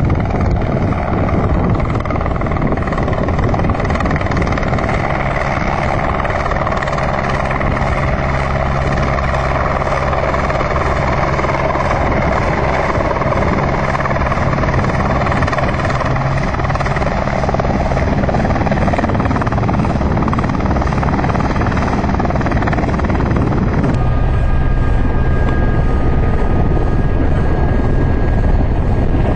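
Eurocopter AS350 BA Ecureuil helicopter, its single turboshaft engine and rotor running steadily at a constant loud pitch. About 24 seconds in, the sound shifts and thin high whines come in.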